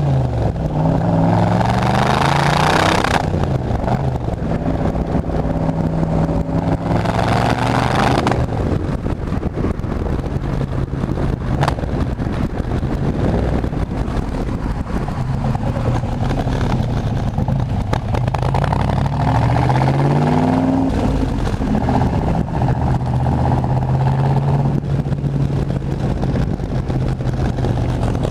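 A vehicle engine running, its pitch rising and falling several times as it speeds up and slows, with louder surges in the first few seconds and again about eight seconds in. It was recorded to check a suspected misfire.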